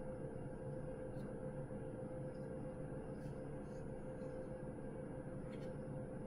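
Room tone: a steady low hum and hiss with a few faint, brief ticks.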